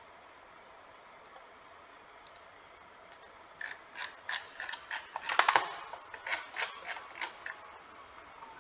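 Computer mouse scroll wheel ratcheting and mouse clicks: a string of sharp clicks starting about three and a half seconds in, with a dense rapid run of clicks in the middle.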